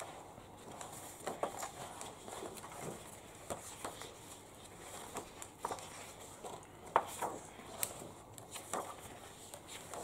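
Sheets of patterned scrapbook paper being leafed through and shifted one by one, making soft, irregular rustles and light taps, with two sharper taps about two-thirds of the way through.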